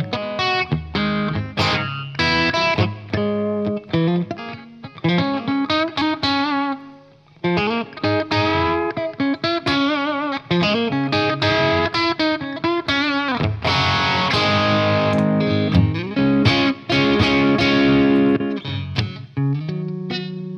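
Telecaster-style electric guitar played through an Origin Revival Drive overdrive pedal: a phrase of single notes and chords with string bends and vibrato, in a driven tone.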